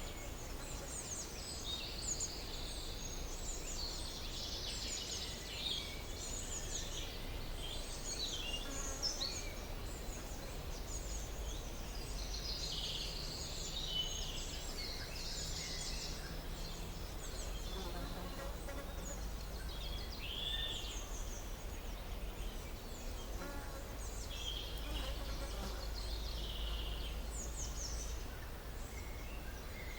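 Several songbirds singing and calling at once, many short high chirps and trills overlapping throughout, over a steady low rumble.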